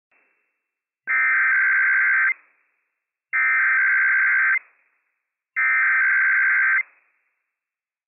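Emergency Alert System SAME header: three identical bursts of rapid two-tone digital data, each a little over a second long with about a second of silence between them. The bursts encode the alert code for a Required Weekly Test.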